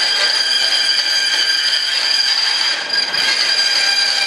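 Band saw running with a steady high whine as a thin sheet is fed through the blade. The level dips briefly about three seconds in.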